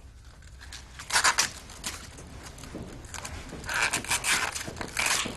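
Rubbing and scraping handling noises, with a few short, louder noisy bursts about a second in and again near the end.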